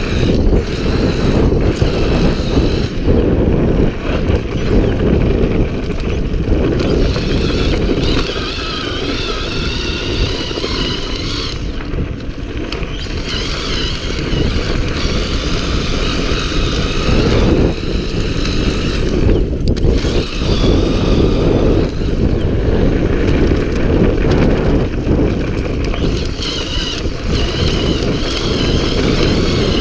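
Homemade electric bike ridden fast over a dirt motocross track: wind buffeting the mic and tyres rumbling over the dirt, with a faint high whine that rises and falls.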